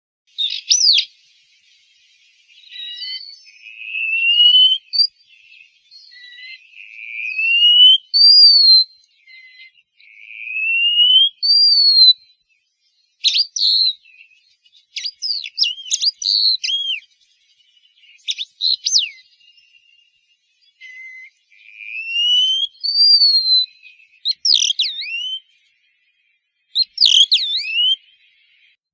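A songbird singing: clear whistled notes that rise in pitch, each about a second long and repeated every few seconds, with quick sharp call notes in between.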